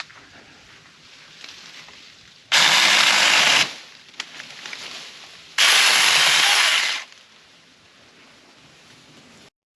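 Saker mini battery-powered electric chainsaw running in two short bursts of about a second each, starting and stopping sharply, with a pause of about two seconds between them.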